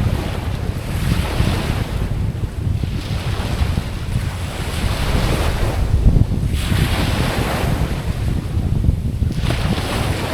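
Ocean waves washing in, about three surges that each swell and fade over roughly three seconds, over a steady low rumble of wind on the microphone.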